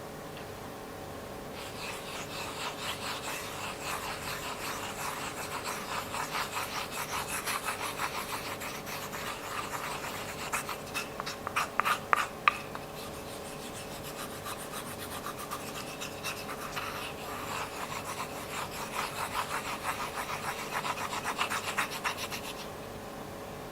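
Rapid rhythmic rubbing or scraping strokes, several a second, with a cluster of louder sharp clicks about halfway through.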